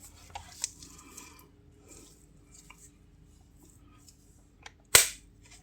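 Light handling rustles and small clicks over a faint steady hum, then one sharp click near the end as the bench power supply feeding the PCB is switched on.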